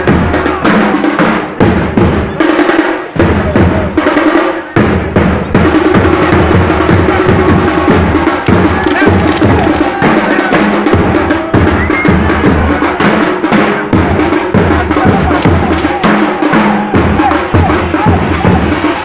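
Loud, continuous rapid drumming over a steady low bass, mixed with the hiss and crackle of firework fountains and sparklers.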